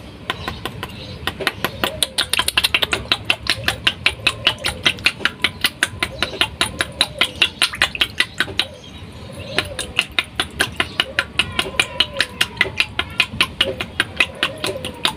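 Metal spoon tapped rapidly and evenly against a plastic pipe fitting at the eel pond's feeding spot, about six sharp clicks a second, with a short pause around nine seconds in. The tapping calls the eels to their food.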